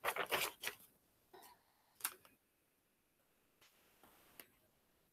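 Paper page of a picture book being turned: a few short rustles in the first second, then a single short tap about two seconds in.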